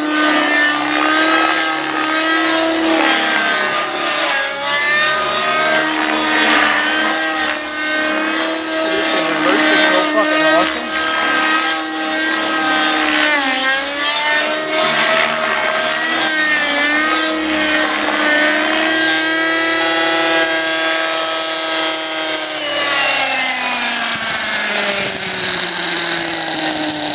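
50-size nitro engine and rotors of a Compass 3D Plus radio-controlled helicopter running at high speed through aerobatic flight, the pitch dipping and recovering several times as the load changes. About 23 seconds in, the pitch falls steadily as the helicopter winds down to land.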